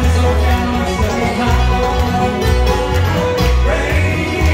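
Live bluegrass band playing an instrumental passage: bowed fiddle, picked banjo, mandolin and guitar over a steady bass beat.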